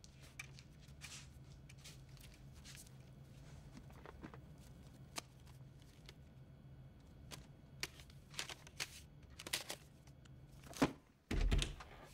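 Small handling noises as a hollowed-out book is opened and a disc and paper banknotes are taken from it: scattered clicks and rustles over a low steady room hum. A dull thud comes near the end.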